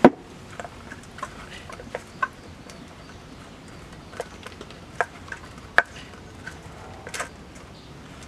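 Brinjal pieces knocking and clattering against a steel plate as a hand tosses them with salt and turmeric: irregular short clicks and knocks, the loudest right at the start.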